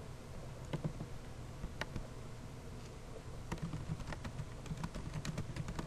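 Typing on a computer keyboard: a few scattered keystrokes, then a quicker run of key presses in the second half.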